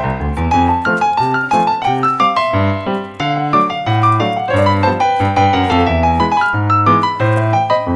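Background music: piano playing a quick melody over a steady bass line.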